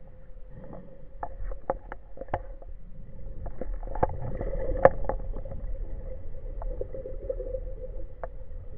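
Underwater sound picked up by a diving camera: a steady hum with scattered sharp clicks and knocks, thickest and loudest about four to five seconds in.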